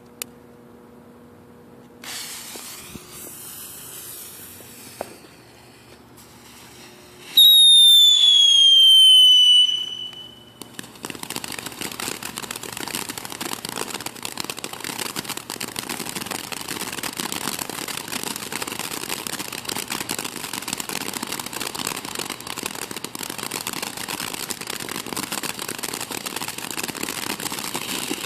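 Consumer firework fountain: a lit fuse hisses, then a loud whistle falls slightly in pitch for about two and a half seconds, and the fountain settles into a steady, dense crackling spray of sparks.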